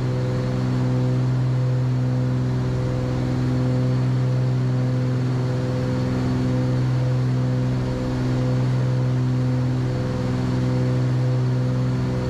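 Cessna 310's twin six-cylinder piston engines and propellers at climb power, heard from inside the cockpit. A steady low drone with a slow rise and fall.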